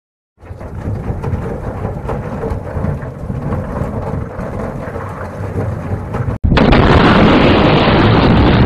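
Deep, thunder-like rumbling noise from an intro sound effect. It starts about half a second in, breaks off for an instant about six and a half seconds in, then comes straight back louder.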